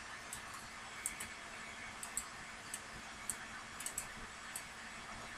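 Faint, irregular light clicks of computer input, about a dozen, as a part is moved in 3D modelling software, over a steady low hum and hiss.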